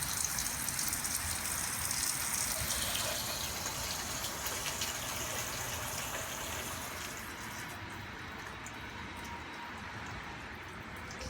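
Water gushing in to fill the reservoir of a scale-model floodwall, a steady rush that softens after about seven seconds.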